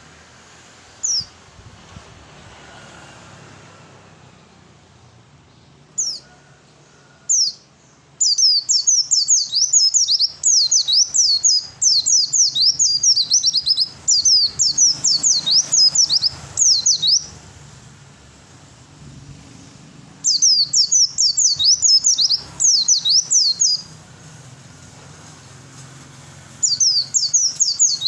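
Male white-eye (pleci) singing: a few single high, quickly falling notes, then long fast runs of falling notes in several bursts with short pauses between.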